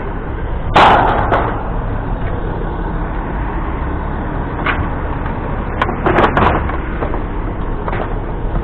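Vehicle engine idling steadily, with a loud clank about a second in and a quick run of knocks and clanks around the six-second mark as scrap metal is handled.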